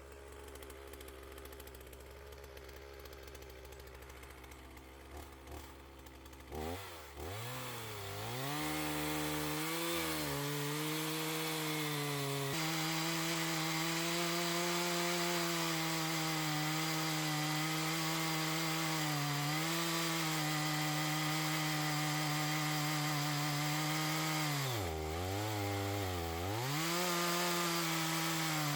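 Two-stroke chainsaw idling, then opened up about a quarter of the way in and held at high revs while cutting into a log. The revs dip twice near the end.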